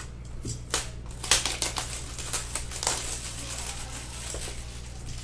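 Plastic shrink-wrap crinkling as it is torn off a cardboard box of trading cards, with the box being handled and its lid lifted. A run of sharp crackles and clicks comes in the first three seconds, then softer rustling.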